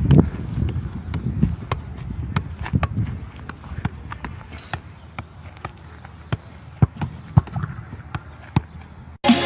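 Football being kicked and juggled on grass: a string of irregular thuds of foot on ball, about one or two a second. Wind rumbles on the microphone and fades after the first few seconds. Electronic music cuts in just before the end.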